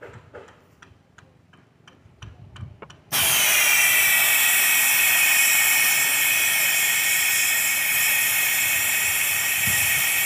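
LPG refill can spraying liquid gas into a plastic bottle: after a few faint clicks, a loud steady hiss starts suddenly about three seconds in and keeps going.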